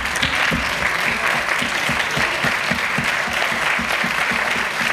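Large audience applauding steadily, with a low beat about four times a second running underneath the clapping.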